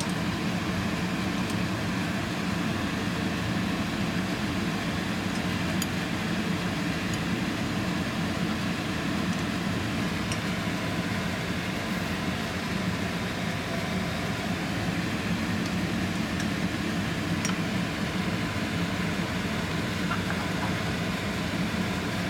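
A fan running with a steady, even hum, with a few faint light ticks.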